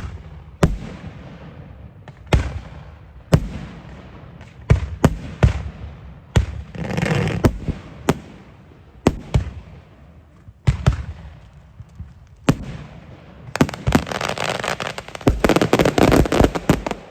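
Fireworks display: a string of sharp bangs from bursting aerial fireworks, each followed by a rolling echo. A crackling burst comes about seven seconds in, and a dense, rapid volley of bangs and crackle fills the last few seconds.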